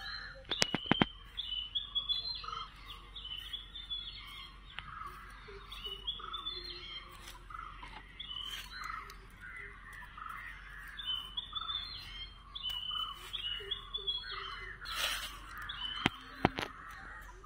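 Birds chirping over and over in the background. A few short clicks about a second in and near the end, as bundles of matchsticks are set down and pressed onto sand.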